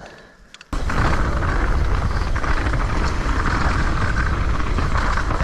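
Wind and trail noise of a downhill mountain bike ride, starting abruptly about a second in, with the bike's Shimano Saint finned brake pads rattling in their calipers.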